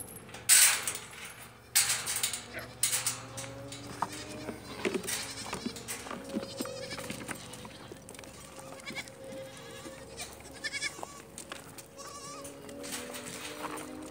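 Goats bleating repeatedly as they run in, excited at being called for food. A few loud bursts of noise come in the first three seconds.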